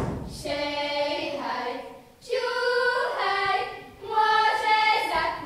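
A group of girls singing a folk song together, in three held phrases with short breaks between them.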